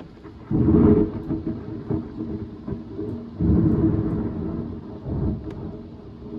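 Nearby thunder: a sudden loud peal about half a second in that breaks into crackling rumble, then a second loud peal about three and a half seconds in that rolls off into rumbling.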